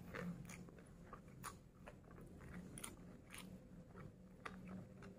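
A person chewing a mouthful of rice and fried tofu, faint, with scattered short soft mouth clicks and smacks.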